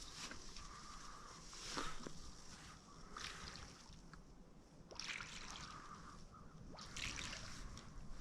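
Faint water sloshing and splashing: a few soft splashes a second or two apart.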